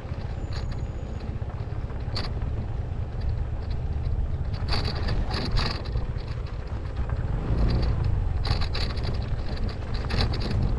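Honda ADV150 scooter's 150 cc single-cylinder engine running as it rides slowly over a rough dirt track, under a heavy low rumble of wind on the microphone. Bursts of rattling and crunching over the bumps come in about the middle and again near the end.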